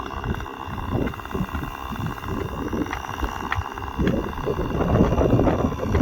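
Chainsaw engine running steadily as it makes the back cut through a dead tree trunk. Uneven low rumbling noise grows louder in the last two seconds.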